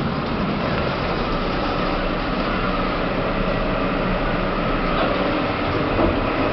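Steady mechanical rumble and hum of a lift car in motion, even throughout.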